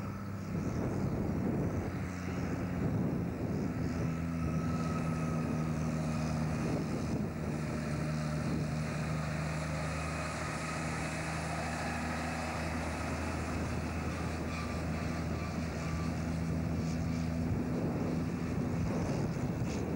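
Diesel engine of a loaded log truck running steadily as the truck drives past, a deep engine note over road and tyre noise.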